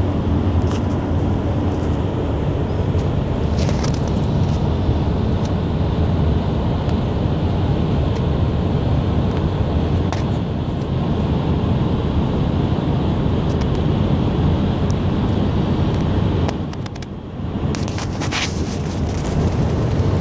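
Steady low rumble of road and engine noise inside a moving car's cabin, easing briefly for a moment near the end.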